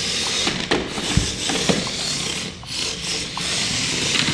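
Two Air Hogs Hyper Tracks remote-control tracked toys driving on a hard wood floor: a steady rasping whir of their small electric motors and plastic treads, with a few sharp clicks and knocks scattered through it.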